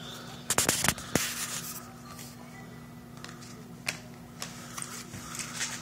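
Baseball trading cards and pack wrappers being handled, giving a few sharp clicks and rustles. The loudest cluster comes about half a second in, with scattered single clicks after it, over a steady low hum.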